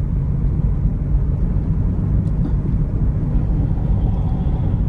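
A car driving on a highway: steady, low road and engine rumble.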